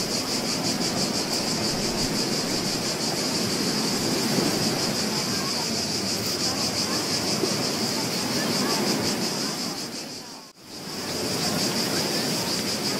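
Recorded beach ambience: ocean waves washing on the shore as a steady rushing noise with a bright high hiss. About ten and a half seconds in it fades almost to silence and swells back in.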